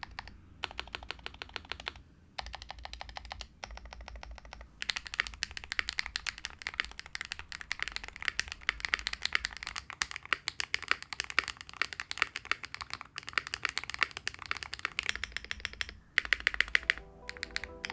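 Typing on a custom mechanical keyboard for a sound test: fast runs of keystrokes broken by short pauses.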